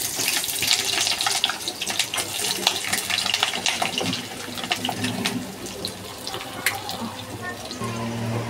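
Onion pieces sizzling and crackling in hot oil in a nonstick pan, the crackle thickest just after they go in and thinning over the following seconds. A steady low hum comes in near the end.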